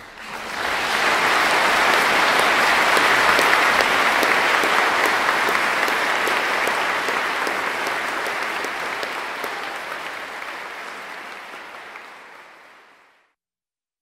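A crowd applauding: dense clapping that swells in within the first second, then slowly fades out to silence near the end.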